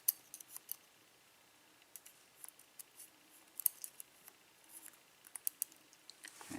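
Light metallic clicks and taps of small lock cylinder parts, pins and springs, being handled with tools. The clicks come irregularly in small clusters, and the sharpest one falls about halfway through.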